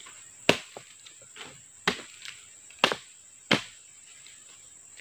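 Four sharp chops of a hand tool striking oil palm fruit bunches, over a steady high insect drone.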